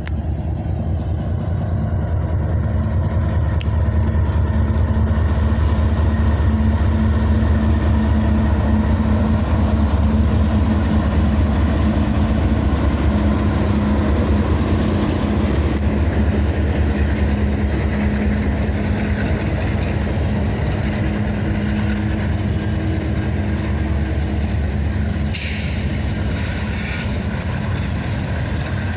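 CSX diesel freight locomotives running past at close range with a heavy, steady engine rumble, then freight cars rolling by over the rails. Near the end a brief high hiss sounds twice.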